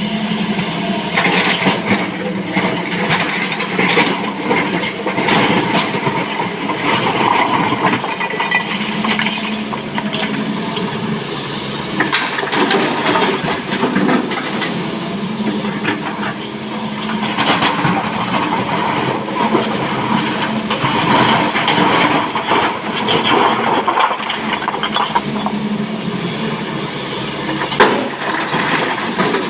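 Excavator diesel engine running under load, with broken stone clattering and scraping as rock is dug and dropped; the knocks come irregularly throughout.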